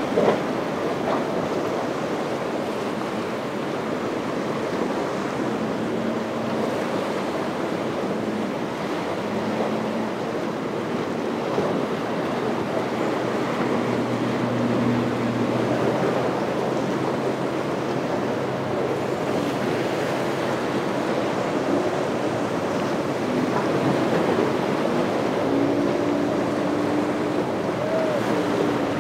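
Ocean waves and surf washing steadily, with wind buffeting the microphone. Underneath, outboard boat motors drone faintly at times, a little clearer near the end as a boat runs past.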